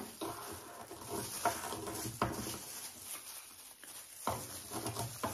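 Intermittent knocks and taps of a pestle working in a small ceramic bowl, a few strokes a couple of seconds apart.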